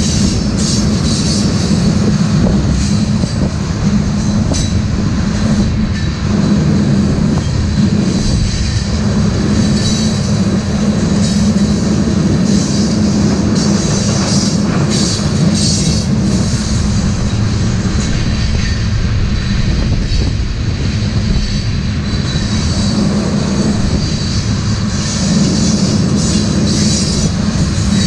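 Railroad tank cars rolling past at speed: a steady, loud rumble of steel wheels on rail with a thin, high wheel squeal running over it.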